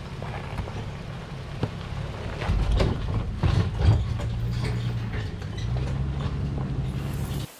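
A 4WD's engine running at low speed while it tows a trailer over a rough bush track, with knocks and rattles from the vehicle and trailer bouncing over ruts, the loudest clatter about four seconds in. The sound cuts off suddenly just before the end.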